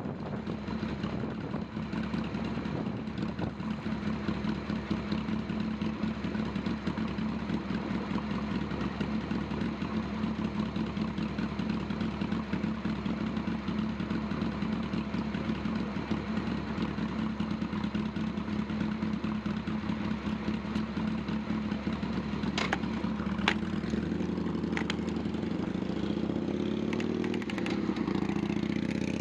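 Steady rumble of a bicycle ride along a city street, with road and wind noise on a handlebar-mounted camera and a few sharp clicks a little past two-thirds of the way through.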